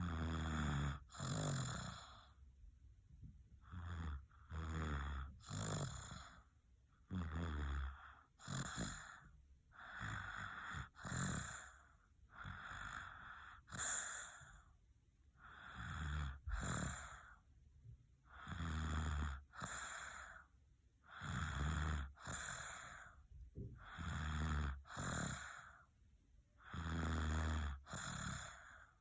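Sleeping baby snuffling and snoring. Each breath in and out is heard as a pair of noisy breaths, about one pair every three seconds, and several carry a low snoring rumble.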